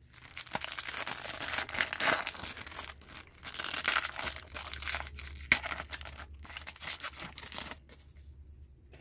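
Foil wrapper of a hockey card pack being torn open and crinkled: a long run of crackling and tearing with a sharp snap about five and a half seconds in, dying away near the end.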